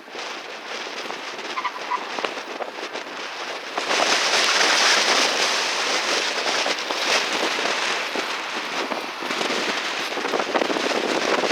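Strong gusty wind hitting the microphone, giving a harsh crackling noise that grows louder about four seconds in.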